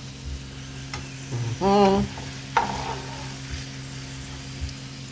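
Chips deep-frying in a pan of hot oil, sizzling steadily while a slotted spatula stirs and turns them, with a few light clicks. A short voice-like sound comes a little under two seconds in.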